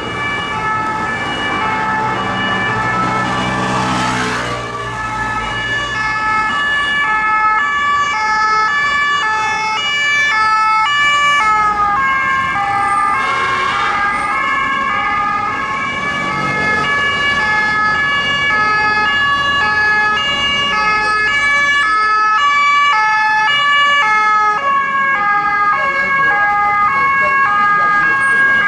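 French Police Nationale two-tone siren ('deux tons') on a responding police car, its two notes alternating steadily, heard over city traffic.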